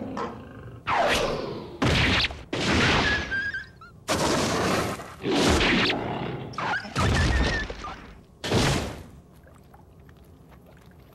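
Anime fight sound effects: a rapid run of about seven loud crashing impacts, one after another, falling quiet about nine seconds in.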